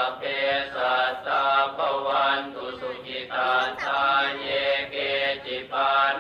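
Buddhist chanting in Pali: a Theravada sutta recited in a steady, even syllable rhythm.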